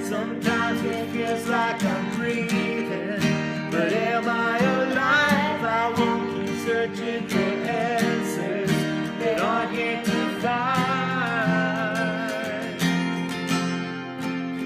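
Live band playing a slow song: strummed acoustic guitar with a singer's voice carrying the melody.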